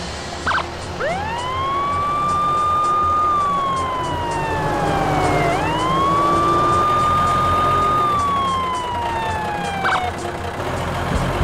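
Wailing siren like a police car's: the pitch rises quickly about a second in, holds high, glides slowly down, then does the same a second time. It plays over background music with a steady beat.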